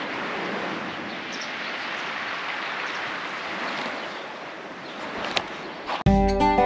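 Small waves washing on a pebble beach, a steady soft hiss that swells and eases slightly. Acoustic guitar music starts abruptly near the end.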